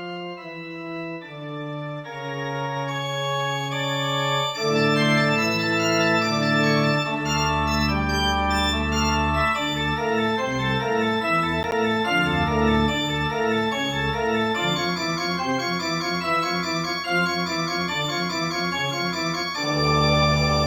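Organ playing slow, held chords, starting thin and quiet; fuller bass notes join about four to five seconds in, then deep low bass a few seconds later, making the music louder and fuller.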